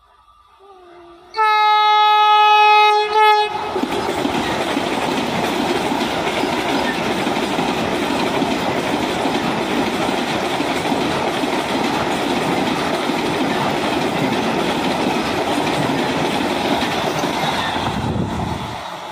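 Vande Bharat Express electric train sounds its horn in one loud blast of about two seconds. It then runs past close by with a steady rushing noise that eases off near the end.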